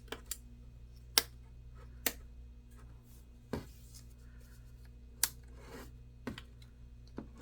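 Sharp plastic clicks, about eight at uneven intervals, as a laptop's screen bezel is pressed down around its edges and its clips snap into place, over a faint steady low hum.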